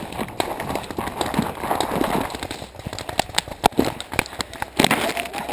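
A paintball player running through dry forest undergrowth: footsteps crunching on leaves and twigs, with sharp irregular cracks scattered throughout.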